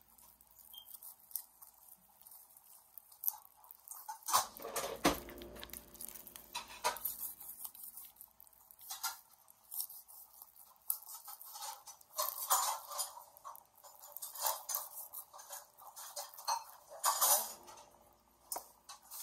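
Knife and utensils scraping and clinking against dishes in irregular strokes as a fish is cut up and its meat taken off the bone.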